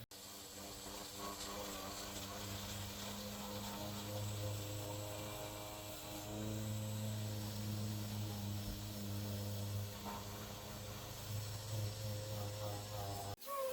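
A steady low electrical hum with faint, slowly wavering higher tones above it, cut off abruptly near the end.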